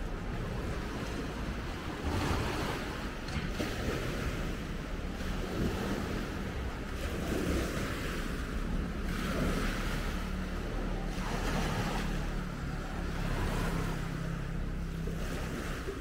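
Wind gusting over the microphone, with small waves lapping around the wharf; the noise swells and fades every second or two over a faint low steady hum.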